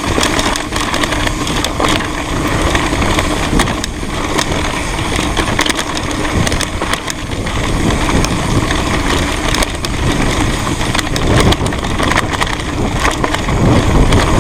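Mountain bike ridden fast over a rough, rocky trail: tyres crunching over stones and the bike clattering and rattling over bumps, with many sharp knocks over a heavy low rumble.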